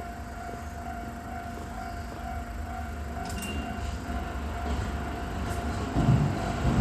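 Japanese level-crossing alarm ringing its repeated electronic "kan-kan" tone while a Keisei Chiba Line train approaches. The train's rumble grows and rises sharply about six seconds in.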